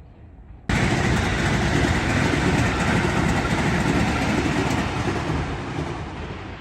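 A train passing close by: a loud rumble and rush of wheels on rail that starts abruptly about a second in and slowly fades away.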